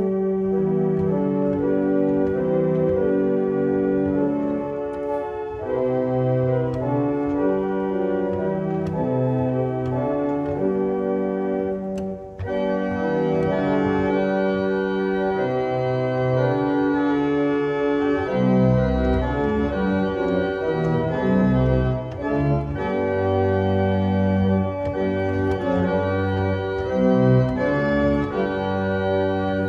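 1890 Roques pipe organ played on its second manual (Récit): sustained chords that change every second or two over moving lower notes, in a crescendo registration with stops of the Récit being added.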